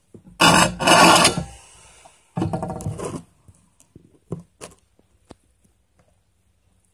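Rubbing and rustling on the phone's microphone as it is handled: two loud bursts about half a second to one and a half seconds in, a third about two and a half seconds in, then a few light clicks.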